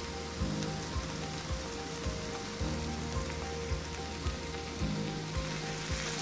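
Vegetables frying on a hot griddle, a steady sizzle, with a spatula stirring them. Soft regular knocks about twice a second sit underneath.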